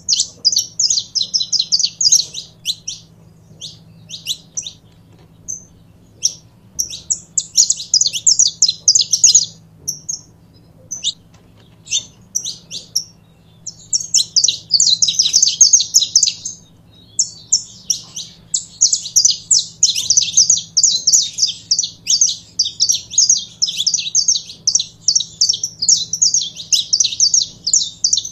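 Saffron finch singing: phrases of rapid, high-pitched chirping notes, separated by short pauses at first, then running on unbroken through the second half.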